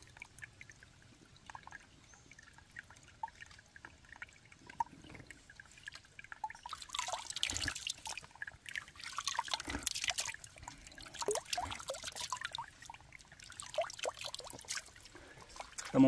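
Spring water trickling and dripping into a shallow pool, with small scattered plinks. From about halfway in, louder irregular splashy noises break in over the trickle.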